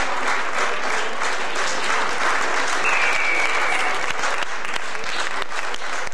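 Spectators applauding, a steady patter of many hands clapping, with a short whistle about three seconds in.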